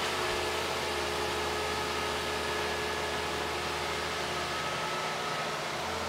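Kubota KX161-3 mini excavator's diesel engine running steadily with a faint steady whine as the machine works, swinging a bucket of soil.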